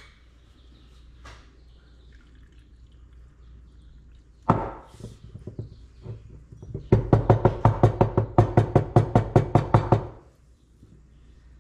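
Glass mason jar of eggs in vinegar brine being handled: one sharp knock, then about three seconds of rapid, even knocking, some seven knocks a second.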